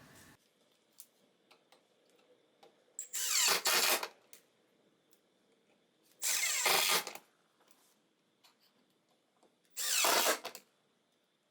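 Power drill driving the screws of hinge mounting plates into a cabinet door: three short runs of about a second each, with small handling clicks between.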